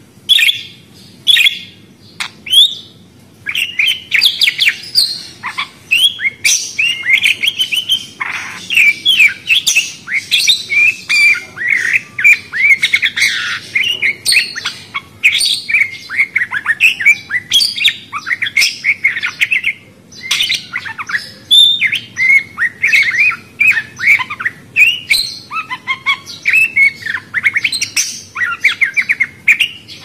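Small pet parrots chattering: a few separate chirps at first, then from about three seconds in a busy, nearly unbroken stream of chirps, warbles and squawks from several birds.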